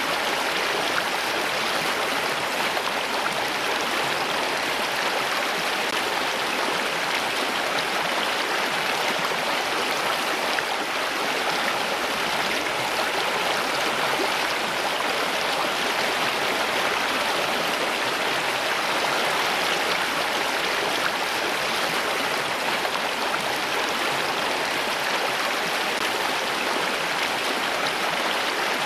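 Water flowing steadily, like a stream, in an even, continuous rush with no breaks or changes.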